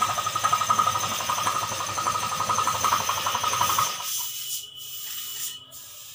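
A machine running loud with a fast pulsing drone, which stops about four seconds in. After it comes a softer hiss broken by short gaps.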